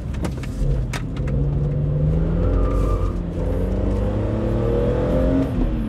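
BMW Z4 M Coupé's 3.2-litre S54 straight-six accelerating under load, heard from inside the cabin: the engine note climbs steadily in pitch, then drops sharply near the end as the revs fall.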